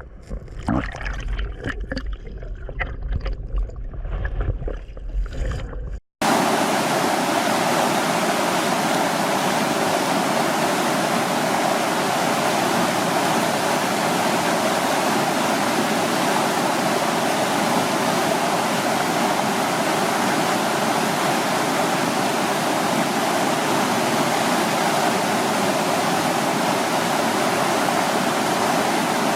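A few knocks over low wind rumble on the microphone, then, about six seconds in, the sound switches suddenly to the steady, loud rush of a mountain stream pouring over a waterfall.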